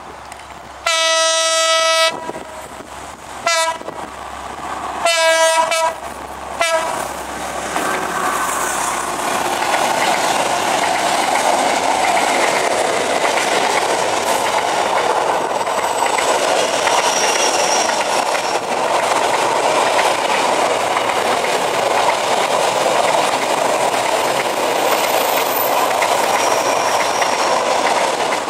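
Horn of a D11H diesel-hydraulic locomotive sounding four blasts on one note, long, short, long, short. About seven seconds in, a container freight train starts rolling steadily past close by.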